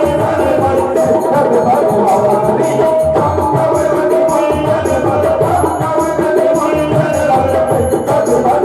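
Devotional Krishna bhajan music: tabla drumming under held melodic instrument tones, in an instrumental passage without sung words.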